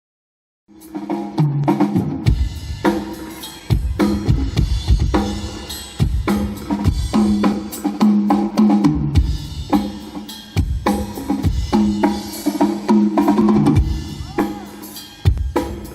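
Music with a drum-kit beat, kick and snare, and sustained bass notes, played loud through a PA sound system on sound check, starting suddenly about a second in.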